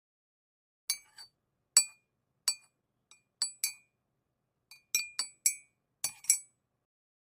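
Light glassy clinks of small hard objects tapping glass or ceramic, about a dozen in an uneven run, each ringing briefly.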